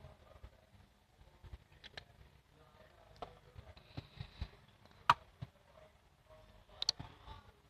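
Faint, scattered clicks and taps from hands handling slime and its containers while colouring it, with a few sharper clicks about five and seven seconds in.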